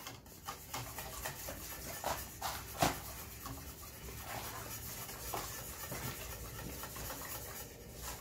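Wire whisk scraping and clicking against a stainless steel pot as it stirs béchamel (white sauce), with one sharper knock about three seconds in.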